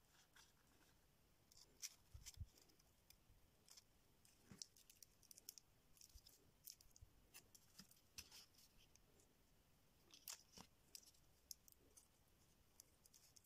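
Near silence with faint, scattered small clicks and rustles: hands handling thin wires, a small battery and the wooden craft-stick frame of a model plane.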